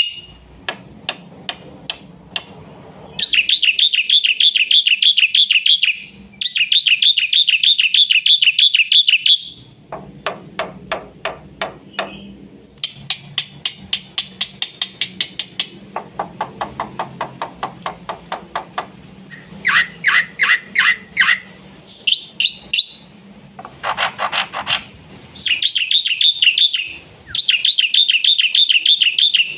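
Black-winged myna (jalak putih) singing a fast, varied song. Long, rapid warbling trills alternate with runs of sharp, repeated clicking notes.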